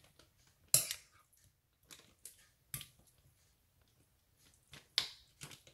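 Plastic zip-top bag being handled, its zipper worked open by hand: a handful of short, separate crinkles and snaps, the loudest less than a second in.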